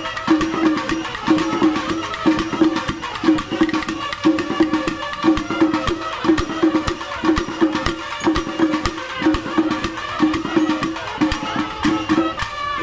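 Rhythmic traditional-style percussion music: sharp drum and wood-block-like strokes with a pitched note repeating about twice a second.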